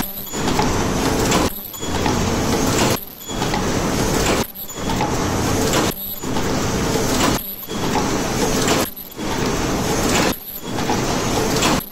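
JBZ-A12 automatic paper cup forming machine running: dense mechanical noise from its forming stations and rotary table, dipping briefly about every one and a half seconds in a regular cycle.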